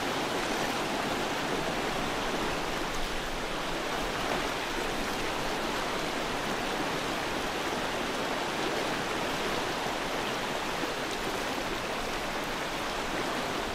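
Steady rushing of flowing water in a stream current.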